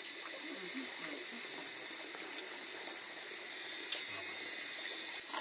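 Steady background chorus of frogs and insects, an even high-pitched drone with no pauses.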